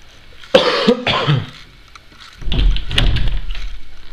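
A person coughing close to the microphone, two sharp coughs about half a second in, followed a second later by a longer throat-clearing.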